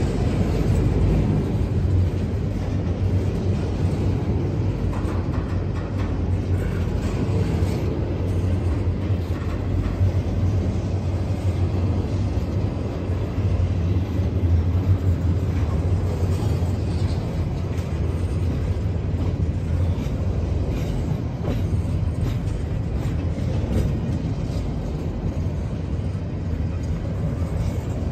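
Double-stack intermodal well cars of a freight train rolling past: a steady low rumble of steel wheels on rail, with scattered clicks from the wheels over the rail joints.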